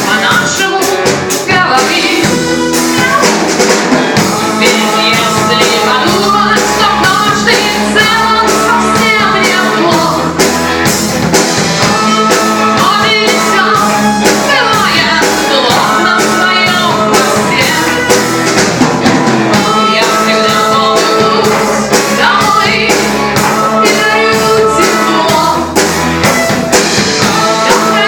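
A live rock band playing a song, with drum kit and guitar, and a singing voice at times.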